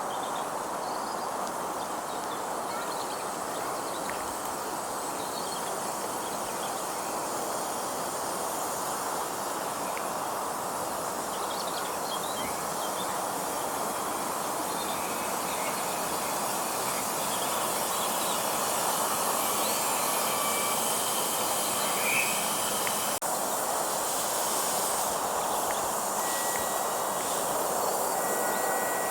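7¼-inch gauge miniature railway train running along the track, a steady rumble that grows slightly louder over the second half.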